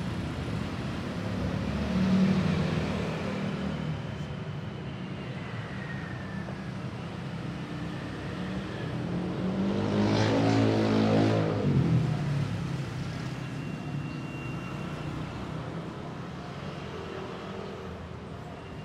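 Road vehicles passing: a steady low traffic hum swells as one vehicle goes by about two seconds in, and a louder engine passes between about ten and twelve seconds in, its pitch sliding as it goes by.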